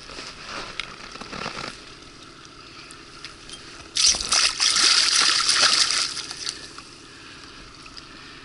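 A hooked lenok thrashing at the water's surface beside the boat, splashing. Some lighter splashing comes in the first second or two, then a loud burst of splashing about four seconds in that lasts about two seconds.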